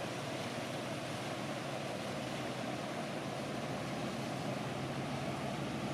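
Steady drone of a high-speed passenger boat's engines with the rush of water from its wake as it passes.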